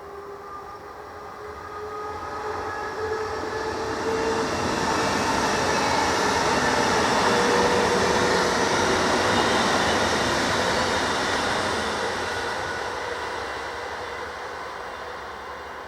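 A train passing by: the rail noise swells over about five seconds, is loudest around the middle, then fades away, with a few steady whining tones in the first few seconds.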